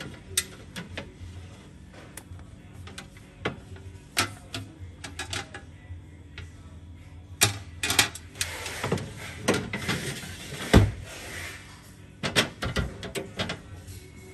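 White wire-mesh draining rack and its tray being slid out of a kitchen shelf and pushed back in, rattling and clacking in a series of light knocks, with one heavier knock about three-quarters of the way through.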